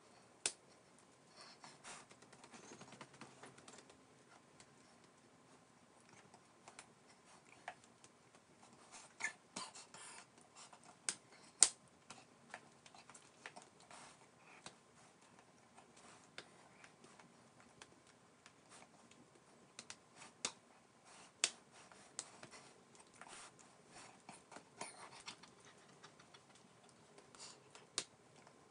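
Faint, irregular clicks and taps over quiet room tone, a few of them sharper and louder, spaced unevenly about every second or two.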